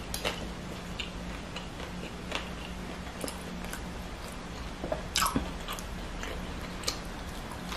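Close-miked chewing and mouth sounds of someone eating green papaya salad with sticky rice, with scattered crisp crunches and a louder cluster of crunches about five seconds in.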